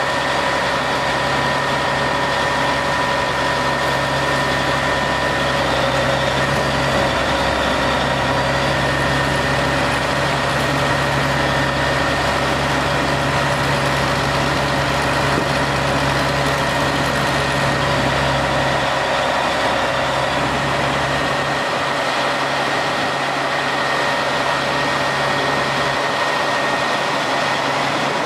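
Engine running steadily, a hum with hiss, whose low drone drops away about two-thirds of the way through.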